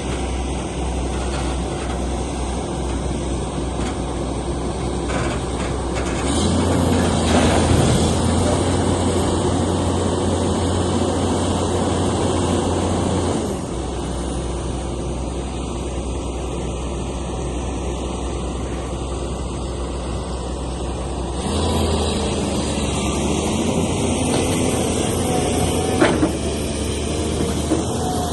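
Heavy machinery diesel engine running steadily, its note stepping up under load twice: about six seconds in for several seconds, and again past twenty seconds in. A sharp clack sounds near the end.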